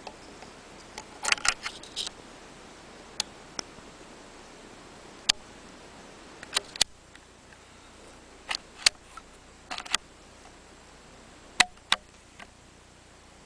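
Sharp metallic clicks and snaps from handling a CZ 452 .22 bolt-action rifle: a cartridge pressed into its magazine and the bolt worked. A quick cluster of clicks comes about a second in, then single clicks and pairs every second or two.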